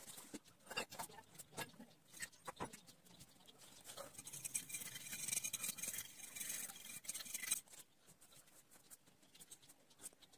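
Fineliner pen nib scratching on paper: short separate strokes at first, then about four seconds in a continuous rapid scribble as a dark area is filled in, stopping abruptly near eight seconds, followed by lighter strokes.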